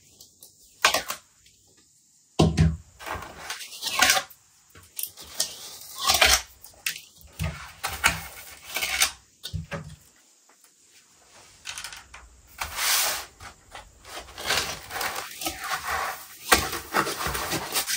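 Irregular rustling, clicks and light knocks of a motherboard being handled in its foam packaging tray and lifted out, with a quieter pause about halfway through.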